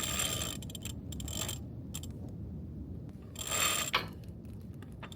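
Sailboat halyard winch clicking and line running as the patched headsail is hoisted, in bursts of about a second with pauses between.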